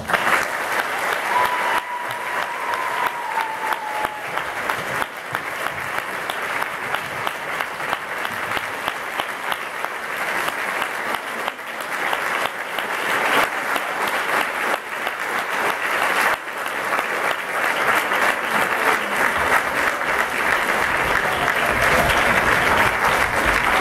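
Large audience clapping and cheering, breaking out suddenly as the a cappella song ends and growing louder toward the end.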